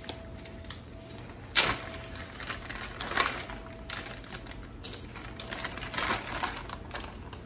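Light clicking and knocking of a measuring cup and utensils while a quarter cup of spelt flour is measured out, with a couple of sharper knocks about one and a half and three seconds in.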